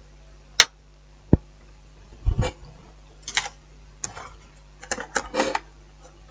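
Hands handling a laptop's plastic case and keyboard: a sharp click under a second in, a dull knock, then several short plastic clatters and rustles as the keyboard is brought back over the chassis.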